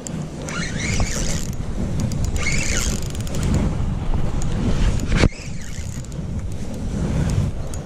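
Wind rumbling on a chest-mounted camera's microphone while a spinning reel is worked against a hooked fish. Two short bursts of higher buzzing come about a second and three seconds in, and a sharp click about five seconds in.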